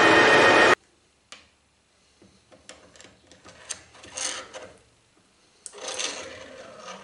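A loud steady rushing noise cuts off suddenly under a second in. Then comes quiet metal-on-metal scraping and rubbing, with a few light clicks, as the threaded cross-slide screw of a metal lathe is turned and drawn out of the slide by hand. The scraping swells twice, near the middle and again near the end.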